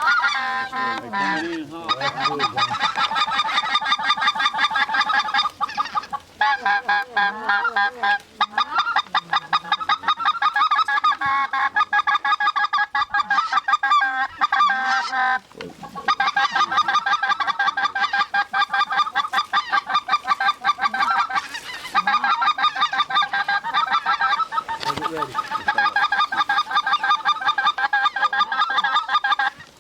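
Dense goose calling: rapid, overlapping honks and clucks that run almost without pause, broken only by short gaps about six, eight and fifteen seconds in.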